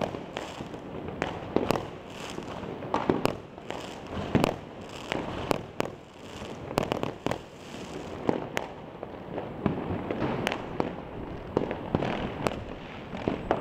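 Fireworks and firecrackers going off across a city: many sharp bangs at irregular intervals, sometimes several within a second, over a steady haze of further bangs and crackle.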